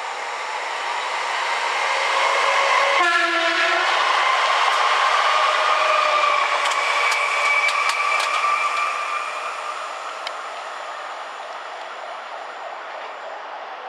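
Pesa Elf electric multiple unit passing through the station at speed: a rushing rumble that builds, peaks as it goes by and fades as it draws away. It sounds one short horn blast about three seconds in, and a few sharp clicks of wheels over rail joints come in the middle.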